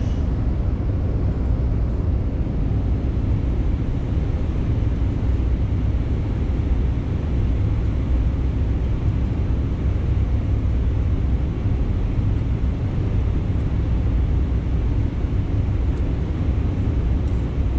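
Steady low machine rumble with an even hiss from cleanroom equipment and ventilation, unchanging throughout.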